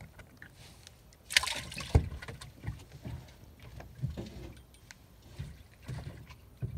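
Knocks and bumps on a fishing boat's deck as someone moves about and handles gear: a short rush of noise about a second and a half in, a hard thump just after it, then scattered softer knocks.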